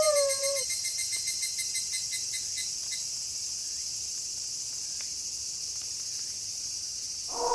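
Steady chirring of crickets at night, with a pulsing trill that fades out about three seconds in. A wolf's howl trails off, falling in pitch, in the first half second, and another howl starts right at the end.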